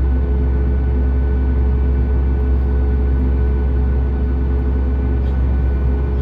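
Steady cabin drone inside a Boeing 737 MAX 8: the CFM LEAP-1B engines and air-conditioning packs, a heavy low hum with a couple of steady whining tones over it, unchanging throughout.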